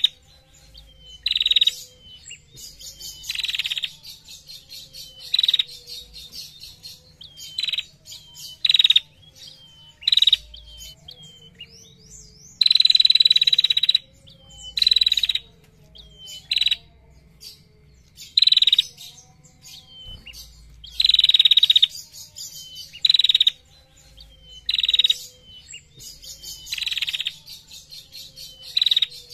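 A caged female tailorbird (prenjak) singing. It gives loud, high, buzzy trills every second or two, two of them drawn out for over a second, with soft short chip notes between.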